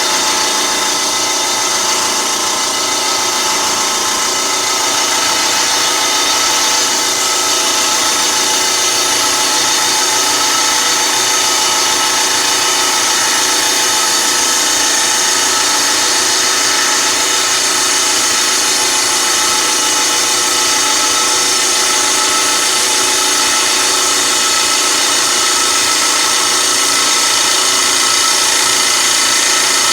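Lapidary trim saw running steadily, its blade grinding through a piece of condor agate clamped in the saw's vise, with a steady motor hum under a high hiss.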